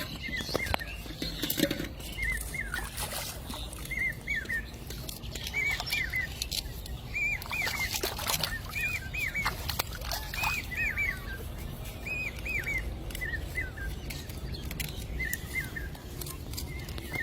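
A bird calling over and over, short rising-and-falling chirps in quick twos and threes, repeated about once a second.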